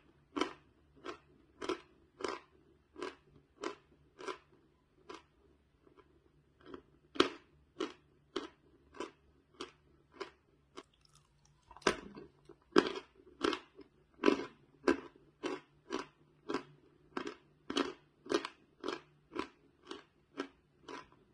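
A mouthful of dry chalk being chewed: crisp, crunchy chews at a steady pace of about two a second. They grow fainter for a moment a few seconds in, then come back louder from about seven seconds.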